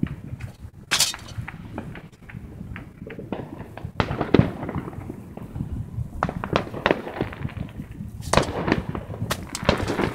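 Fireworks popping and crackling irregularly, with louder clusters of bangs about four seconds in and again near the end.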